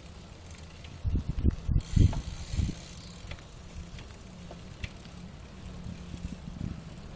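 Bicycles rolling along an asphalt path, with the ticking of a coasting freewheel hub over a steady low rumble. A cluster of low thumps comes about one to three seconds in.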